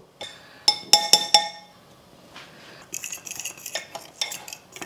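A kitchen utensil clinking and scraping against a mixing bowl while flour, baking powder, baking soda and salt are mixed together. A few ringing clinks come about a second in, then a run of quick clicks and scrapes from about three seconds in.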